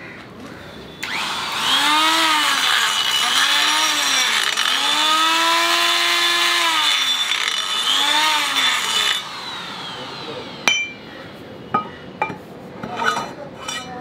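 Electric die grinder grinding metal inside the pin bore of a steel bucket link, its motor pitch rising and falling about four times as it bites and eases off. It stops abruptly; a few light metallic clinks follow.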